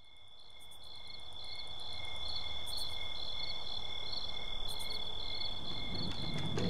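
Crickets chirping at night: a steady high trill with pulsed chirps about twice a second, fading in from silence. A low rumble starts to build near the end.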